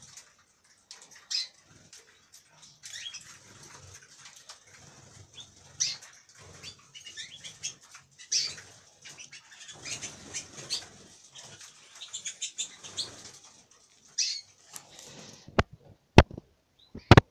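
Canaries in wire breeding cages chirping in short, scattered calls, with wings fluttering. Near the end come four loud, sharp clicks.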